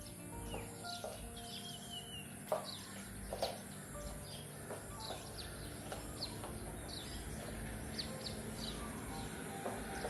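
Birds chirping over and over in short high calls, with two sharp knocks about two and a half and three and a half seconds in.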